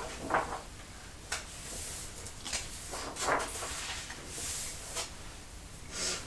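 Close-up handling sounds: irregular soft rustles and light clicks or taps, one every half second to a second.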